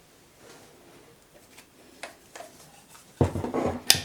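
Light metal knocks and clicks as a gear shaft is tapped out of its bearing through a soft aluminium piece in an X2 mini mill's gearbox: a few faint clicks, then a short cluster of louder knocks near the end with one sharp click.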